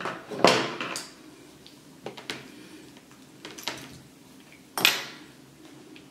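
Scattered clicks and knocks from handling class D amplifier boards and their wires on a workbench: about six sharp, short knocks, the loudest near five seconds in.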